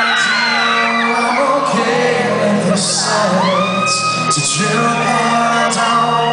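Live rock band playing loudly, with crowd whoops and shouts over the music.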